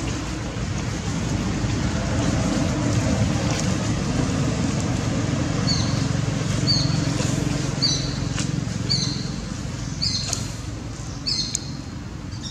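A low, steady rumble that swells through the first half and eases toward the end, with a run of short, high chirps about once a second in the second half, growing louder.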